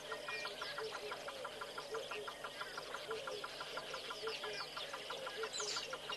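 Wild birds calling over one another in the bush, with many short high chirps. Under them runs a fast, even pulsing call and a short low note that comes back every second or so.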